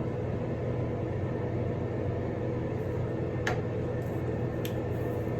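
Bathroom exhaust fan running with a steady, loud hum. Two light clicks come in the middle, about a second apart.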